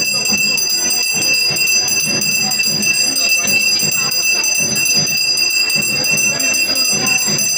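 Brass hand bell (ghanta) rung continuously during aarti worship, a steady high ringing over a busy background din.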